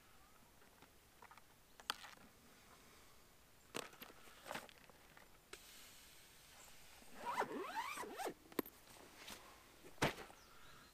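Zip drawn round a soft fabric trace wallet to close it, a rasping run of about a second some seven seconds in, between light clicks of handling. A sharp knock comes near the end as the wallet is set down against a bedchair.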